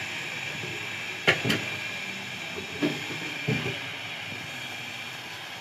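Steady hiss of a gas stove burner under a pot of cooking carrot halwa, with a few sharp knocks of kitchen utensils: two close together a little over a second in, then single knocks near three and three and a half seconds.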